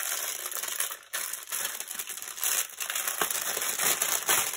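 Clear plastic bags of diamond painting drills crinkling as they are handled, with a few sharper crackles.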